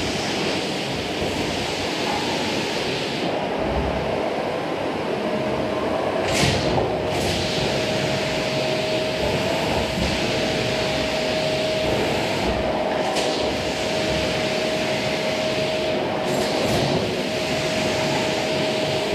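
Vacuum cleaner running steadily over a floor, with a steady whine and a few brief higher-pitched rushes of air.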